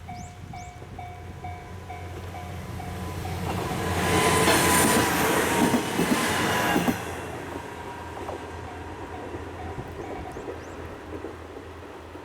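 A Japanese level-crossing alarm ringing its repeated ding-ding while a Hachikō Line train, a diesel railcar on this stretch, passes through loudly for about three seconds, from roughly four to seven seconds in. The alarm keeps ringing faintly after the train has gone.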